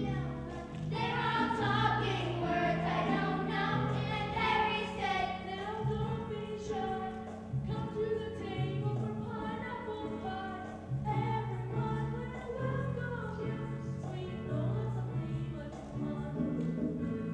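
Children's choir singing in unison over instrumental accompaniment with a steady, changing bass line.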